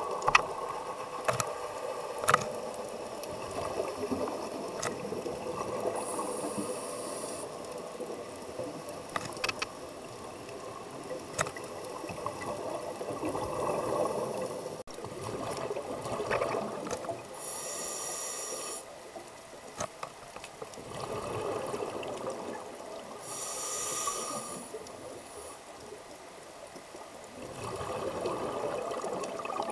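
Scuba diver's breathing heard underwater: regulator hiss on the inhalations and rushing exhaled bubbles, swelling and fading every few seconds, with a few sharp clicks.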